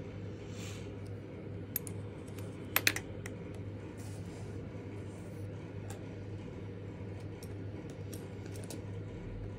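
Light clicks and taps of gel pens being handled and put down on a desk, the loudest cluster about three seconds in, over a steady low hum.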